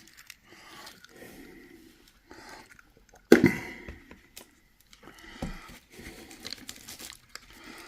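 An egg cracked sharply about three seconds in, once, then emptied into a bowl of ground beef meatloaf mix, with faint wet handling sounds around it.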